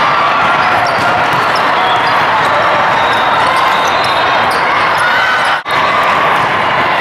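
Busy volleyball tournament hall din: many overlapping players' and spectators' voices from several courts, with volleyballs being hit and bouncing on the court. The sound drops out briefly about five and a half seconds in.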